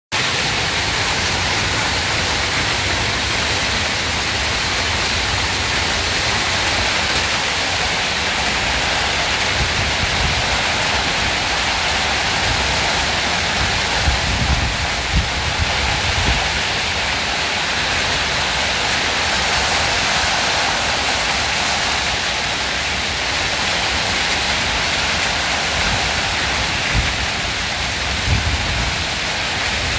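Hailstorm: a dense, steady hiss of hail and heavy rain pelting the ground, trees and roof, with a few low thumps around the middle and near the end.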